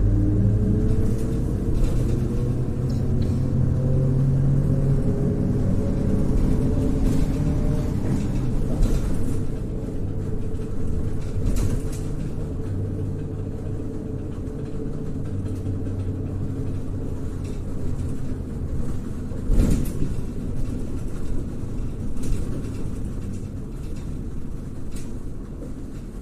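Inside a MAZ-103 city bus under way: the engine note rises over the first few seconds as the bus gathers speed, then settles into steady running under a constant road rumble. A few short rattling knocks come through the cabin, the loudest about twenty seconds in.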